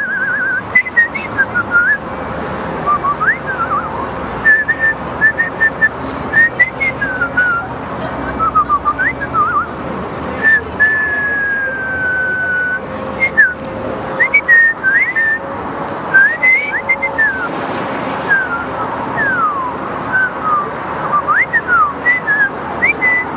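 Whistling: a string of short whistled notes, chirps and quick pitch glides, with one long, slowly falling note about eleven seconds in, over quiet background music.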